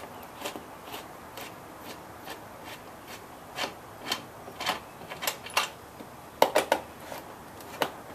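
Scattered sharp clicks and light knocks of a hand tool working the 10 mm bolts on a scooter's plastic floor pan, with a quick run of louder clicks about six and a half seconds in.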